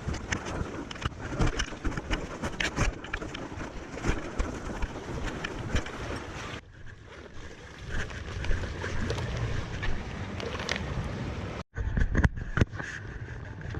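Wind buffeting the microphone over sea surf, with frequent small clicks and knocks throughout.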